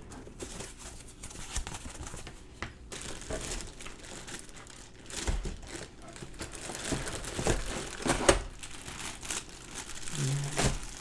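Plastic packaging crinkling and rustling as it is handled and pulled apart, with irregular crackles and a sharp knock about eight seconds in.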